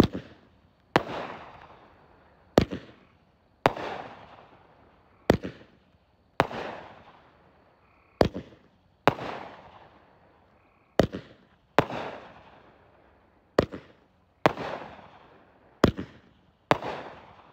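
A multi-shot consumer firework cake firing seven shots in a steady rhythm, one about every two and a half seconds. Each shot is a sharp launch pop, followed about a second later by the louder bang of the shell bursting overhead, which trails off.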